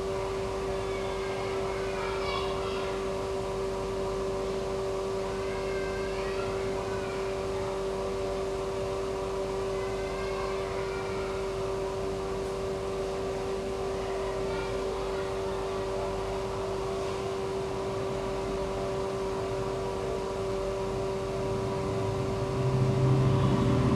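Motor droning at a steady pitch, a constant hum with a strong single tone and fainter tones above it. Faint wavering chirps come back about every four seconds. Near the end a louder low rumble swells up for a couple of seconds.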